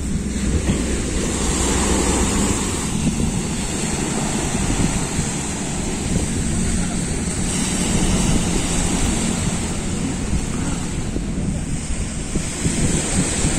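Wind buffeting the microphone with a steady low rumble, over the wash of small waves on the shore.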